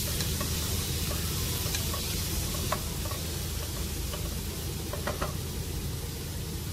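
Shrimp and sliced onions sizzling in oil in a non-stick pot while a wooden spatula stirs them, with a few light taps of the spatula against the pan.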